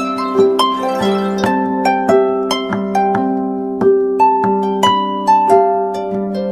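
Samsung phone alarm tone playing a melodic tune of quick plucked, harp-like notes over held lower notes.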